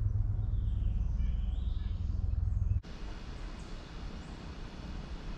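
Wind buffeting the microphone as a heavy low rumble, cutting off suddenly about three seconds in. It leaves a quieter outdoor background with a few faint bird chirps.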